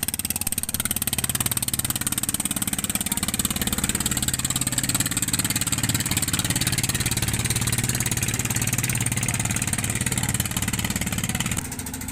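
Boat engine running steadily at close range, an even engine note with a dense hiss over it. It drops off sharply near the end.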